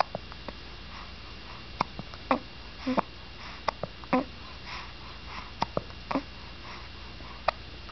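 Two-week-old baby hiccuping: a dozen or so short, sharp hics at irregular intervals, several with a brief squeak of voice.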